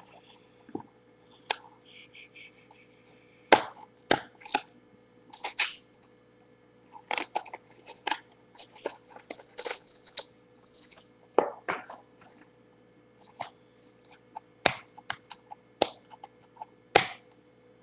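Cardboard and plastic packaging of a trading-card box being handled: irregular sharp clicks, cracks and short crinkles, over a faint steady hum.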